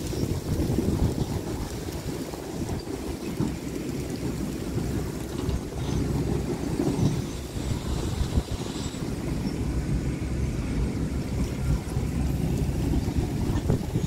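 Heavy earthmoving machinery running steadily, a continuous low engine sound from the diesel engines of the dump trucks or bulldozer.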